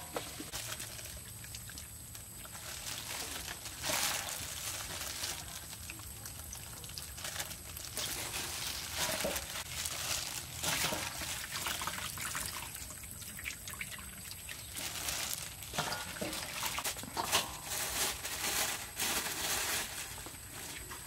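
Gloved hands squeezing and tossing strips of sliced watermelon rind in a stainless steel bowl, making irregular wet squelching and crinkling sounds.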